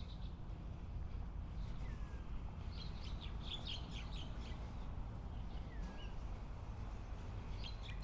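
Birds chirping: a quick run of high chirps about three to four seconds in, and two short falling whistles, over a steady low rumble.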